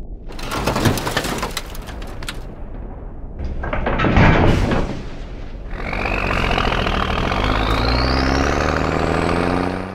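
Cartoon sound effects: a clattering rattle for about two seconds as a truck's tipping bed dumps a load of skulls and bones, a louder rush of noise about four seconds in, then from about six seconds a truck engine revving up, rising steadily in pitch as it pulls away.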